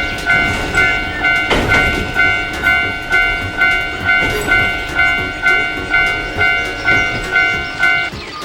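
Japanese railroad crossing warning bell ringing its "kan-kan" about twice a second over the rumble of a passing train. The bell stops shortly before the end.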